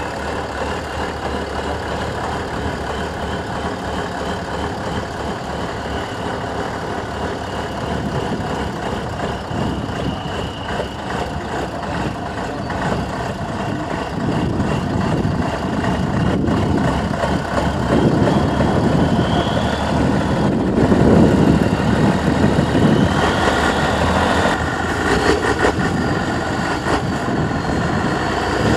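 Praga V3S 6x6 trial truck's diesel engine running under load as the truck crawls up a steep dirt slope, growing louder from about halfway through, with heavier surges around two-thirds of the way in.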